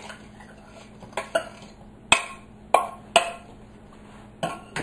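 A glass measuring cup being knocked to shake sugar out into a stainless steel mixing bowl. About seven sharp clinks come at irregular intervals, the loudest around two and three seconds in.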